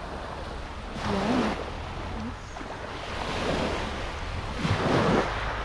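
Small waves washing onto a pebble beach, swelling and falling back several times, with wind rumbling on the microphone.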